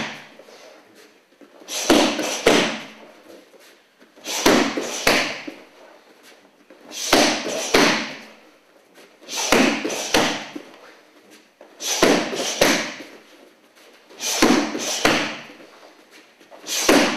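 Strikes and kicks slapping against handheld kick mitts, in quick combinations of two or three hits repeated about every two and a half seconds.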